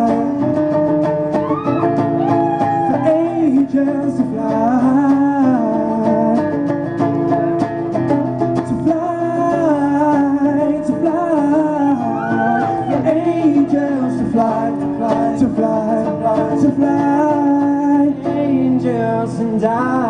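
Live male vocal group singing several voice parts at once over a strummed acoustic guitar.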